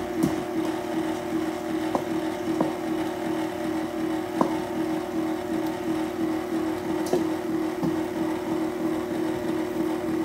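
Electric stand mixer running steadily on its lowest 'stir' speed, an even motor hum, mixing a cup of flour into pound cake batter. A few light ticks come through over the hum.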